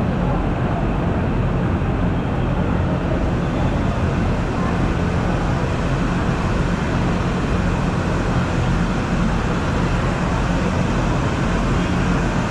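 Steady, loud rumbling noise of a crowd of people queuing in a hall, with indistinct voices mixed in.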